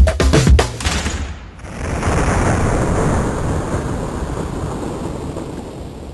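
Music with a steady beat stops about a second in. Then a loud rumbling wash of noise swells and slowly fades out.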